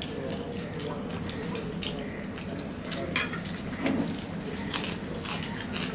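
Close-up eating sounds: scattered wet mouth smacks and clicks as fingers are licked and wiped across plates to finish the food, a little louder about three and four seconds in, over a steady low hum.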